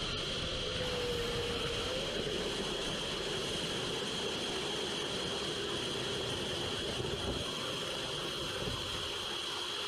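BluShift's biofuel-powered rocket motor firing in a static test: a steady rushing noise with a high whistling tone held throughout.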